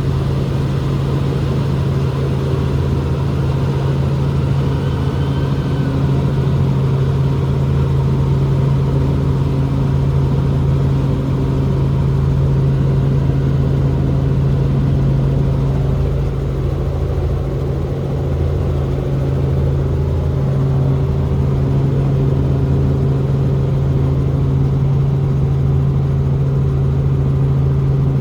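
Helicopter running: a loud, steady drone with a strong low hum and fainter steady tones above it, holding even throughout.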